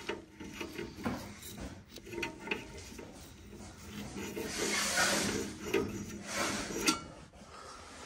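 A thin wire scraping and clicking inside a gas furnace burner, fishing out a cobweb that clogged it. The technician blames that clog for the burner's high carbon monoxide. The scraping is irregular, with a longer rasping stretch about halfway through and a sharp click near the end.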